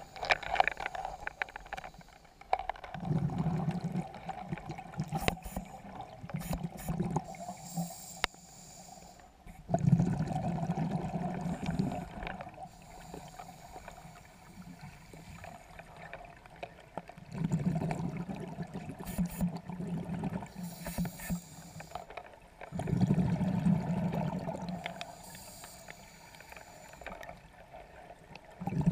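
Scuba breathing heard underwater: four bursts of exhaled bubbles from a regulator, each a low bubbling rumble of a few seconds, about every six seconds, with quieter gaps for the in-breath between.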